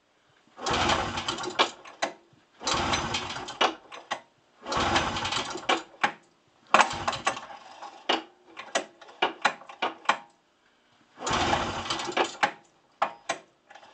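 1989 Arctic Cat Jag 340 snowmobile's two-stroke engine being cranked by its recoil pull-starter, four strong pulls of about a second each without firing. Fuel is only now reaching the carburettor after the fuel system sat dry all off-season. Between the third and fourth pulls there is a run of sharp clicks.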